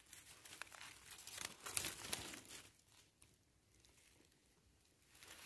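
Faint crackling and rustling of dry fallen oak leaves as a hand moves through the leaf litter. It stops a little under three seconds in, leaving near silence until the rustling starts again right at the end.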